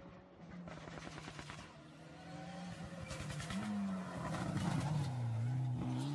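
Rally car engine coming closer at speed and growing steadily louder. Its note climbs, falls about five seconds in as it slows, then climbs again as it pulls away under power.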